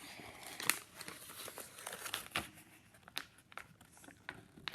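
A sheet of printer paper rustling and crinkling as it is folded and creased by hand, with irregular sharp crackles, the sharpest about a second in.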